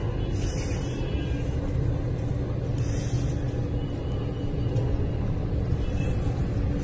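A steady low rumble with a faint even hum under it, and brief soft hissing a couple of times.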